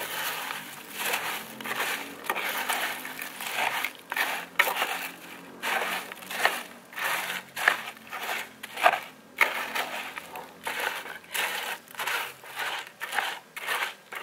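Frosties cereal being stirred into melted chocolate in a metal mess tin with a spoon: repeated crunching strokes, roughly one or two a second, with the spoon clicking against the tin.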